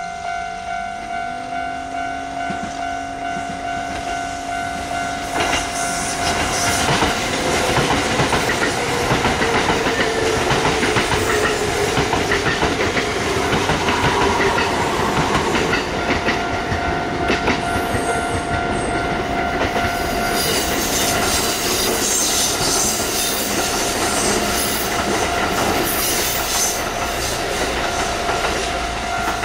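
A Kintetsu electric train passes over a level crossing, its wheels clattering over the rail joints and its motors whining, while the crossing's warning bell rings steadily. The passing noise swells about six seconds in and stays loud.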